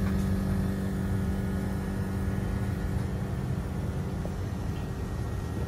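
Mitsubishi Electric MXY-4H33VG inverter multi-split outdoor condensing unit running with a steady hum, its SW1 standby-power mode deactivated. A low steady tone in the hum fades about two seconds in.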